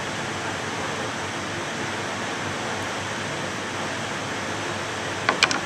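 Steady even hiss of background room noise, with a quick cluster of three sharp clicks near the end as the boning knife is set down on the plastic cutting board.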